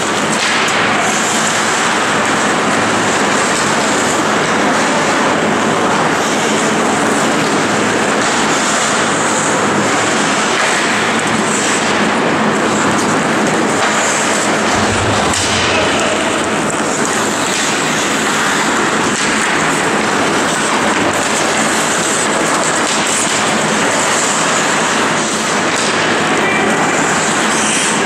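Steady, even din of an indoor ice rink during a hockey game, with no single event standing out.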